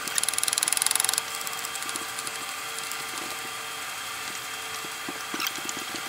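Ratchet wrench clicking rapidly for about a second, then a few scattered clicks, on the sway bar bushing bracket bolts, over a steady hum.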